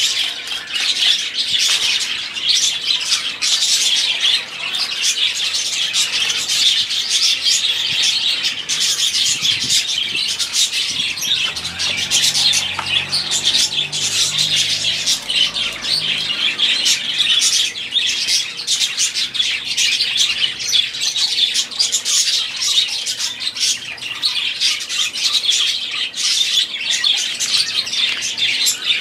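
A flock of budgerigars chattering and warbling without a break, a dense mix of quick chirps, trills and squawks.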